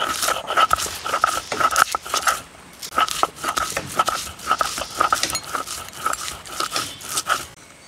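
Stone roller rolled and ground back and forth on a flat stone slab (shil-pata), crushing garlic cloves: rhythmic grinding strokes about three a second, with a short break about two and a half seconds in, stopping just before the end.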